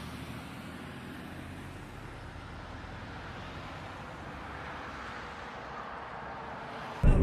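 Steady low car-engine idle hum and street traffic noise picked up by a dashcam inside a stationary car; no distinct crash impact is heard. Near the end a much louder recording cuts in abruptly.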